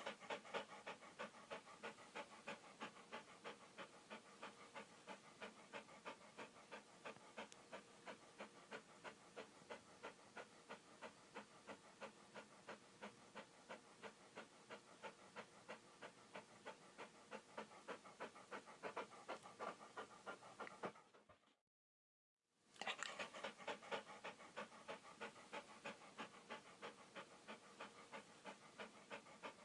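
Dog panting in a fast, even rhythm, about three breaths a second. It stops for about a second some 21 seconds in, then starts again.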